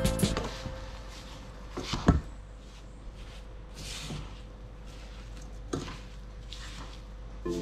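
Wooden spatula stirring grated coconut pulp and sugar in a stainless steel pot: soft scraping and rustling, with a sharp knock about two seconds in and a few lighter knocks later.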